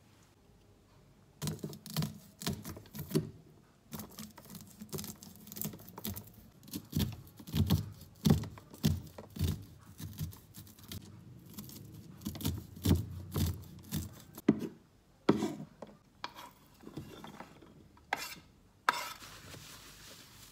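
A kitchen knife cutting kernels off an upright corn cob on a wooden cutting board: repeated downward strokes, each ending in a knock of the blade on the board. Near the end a cloth rubs across the table top.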